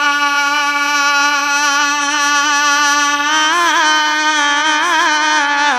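A man singing a naat into a microphone, holding one long note steady for about three seconds, then breaking into a wavering, ornamented run that steps down in pitch at the very end.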